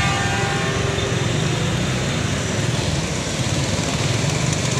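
Traffic on a flooded road: motor vehicle engines running as a steady low drone, with a hiss of noise over it.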